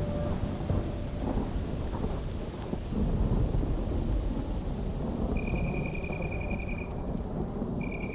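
Electronic noise music made in FL Studio: a dense, rumbling wash of noise like heavy rain and thunder, with thin steady high tones cutting in briefly about two and three seconds in and a longer one from about five and a half to seven seconds.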